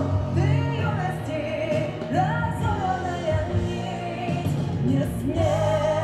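A woman singing a slow ballad in a full voice, her long held notes bending and gliding in pitch over a steady instrumental backing.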